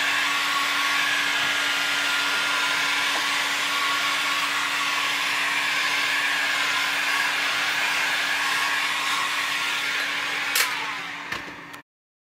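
Electric hot air gun blowing steadily, a rushing fan noise over a steady motor hum. Near the end it clicks off and winds down.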